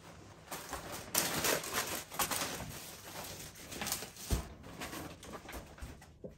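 Groceries being unpacked from a plastic shopping bag: the bag rustles and packages crinkle and tap as they are lifted out and set down on the counter, with one sharp knock about four seconds in.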